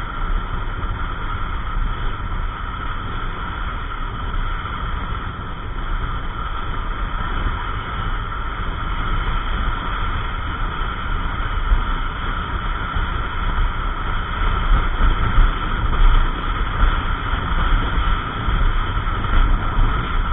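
Riding noise on a Yamaha NMAX 155 scooter at cruising speed: wind buffeting on the microphone over the single-cylinder engine and road noise. The rumble is steady and grows somewhat louder in the second half.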